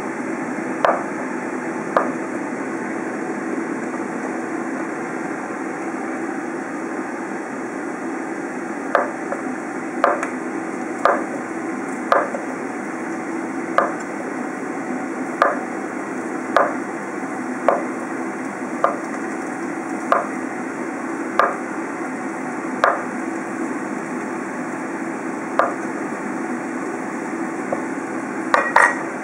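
Kitchen knife slicing through a block of rice cake and knocking on a wooden cutting board, one cut about every second, with a pause of several seconds after the first two cuts. A steady low hum runs underneath.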